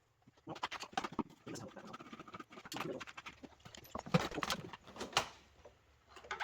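Irregular clicks, taps and knocks of a plastic vacuum cleaner housing and hand tools being handled while it is taken apart.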